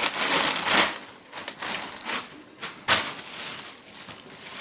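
Bags and cereal boxes being handled: a rustle in the first second, then a few sharp knocks and taps, the loudest about three seconds in.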